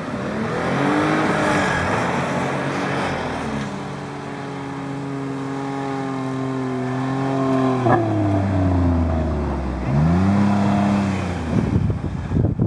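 Jeep Wrangler Rubicon engine revving hard under load as the Jeep pushes through deep snow with its wheels spinning. It rises about a second in and holds through a long pull. The revs drop sharply with a short crack at about eight seconds, then climb and fall once more near the end.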